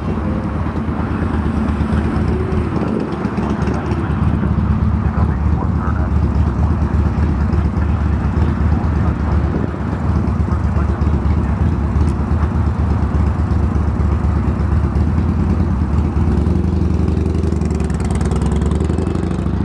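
Jet engines of a Boeing 777 rolling along the runway: a steady deep rumble, growing a little louder about four seconds in.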